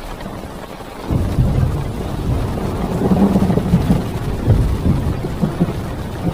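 Heavy rain beating on a parked car's roof and windows, heard from inside the car, with a long low rumble of thunder that swells up about a second in and rolls on unevenly.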